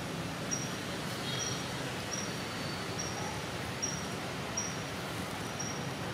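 Forest ambience: a steady background hiss with a short, high chirp repeating evenly, a little more than once a second.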